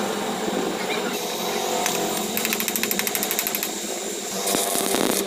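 Steady whirring and hiss of metalworking on a steel C-clamp, with a run of rapid crackling clicks in the middle.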